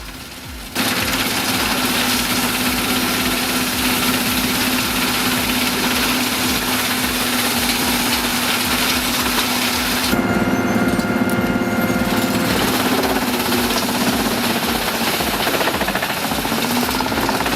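Gandini Energy 4075 wood chipper running and chipping wood: a loud, dense shredding noise over a steady engine hum, starting suddenly just under a second in. About ten seconds in, the high hiss thins and a deeper engine tone with several pitches comes forward for a couple of seconds, as if the machine were under heavier load. A faint regular beat of background music runs underneath.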